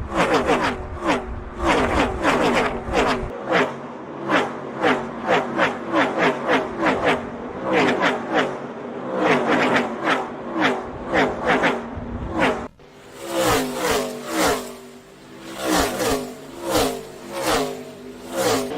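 NASCAR stock cars' V8 engines flying past one after another in a tight pack, each pass a loud swell whose pitch drops as the car goes by. The sound cuts off sharply about two-thirds of the way through, then more cars pass in the same way.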